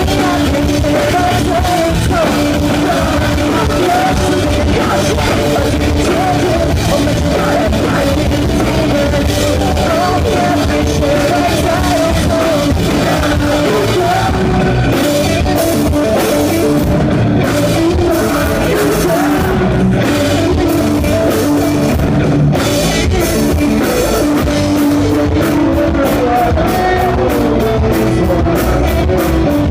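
Pop-punk band playing live and loud, with sung vocals over guitars and a drum kit.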